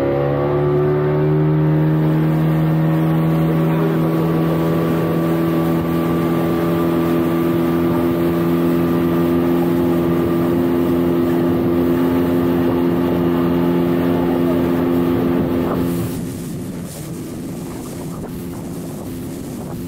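Speedboat engine running at high revs, its note climbing slightly in the first second or two and then holding steady. About sixteen seconds in the engine note drops away suddenly, leaving the rush of wind and water.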